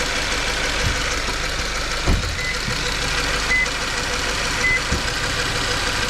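Subaru FB16 flat-four engine running at idle with a steady noise, the unexplained noise the owner is asking about. A few low thumps come through, the loudest about two seconds in, and three short high beeps sound about a second apart in the middle.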